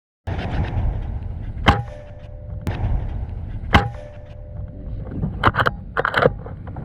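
Two sharp shots from a Hatsan Vectis .25 PCP air rifle about two seconds apart, each followed by a brief ring, with a few quicker clicks and clatter near the end. A low rumble runs underneath.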